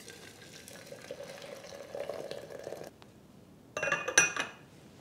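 A soft, steady rushing sound for about three seconds, then a porcelain teapot lid set onto the pot with a few quick clinks near the end.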